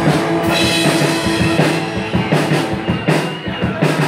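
Live rock band playing an instrumental intro: electric guitar chords ringing over a drum kit beating out a rhythm.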